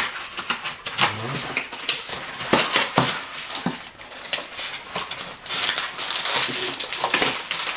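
Cardboard packaging and a plastic bag being handled: scattered taps and clicks of the cardboard box flaps, then, about two-thirds of the way in, denser crinkling of the plastic bag wrapped around the headphones.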